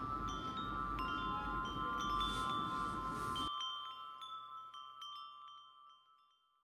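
Wind chimes ringing, with many light strikes over sustained ringing tones. A low background noise cuts off suddenly about halfway through, and the chimes ring on and fade away near the end.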